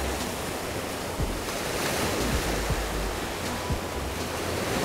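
Small ocean waves washing in over a rocky shore ledge, with gusts of wind buffeting the microphone now and then.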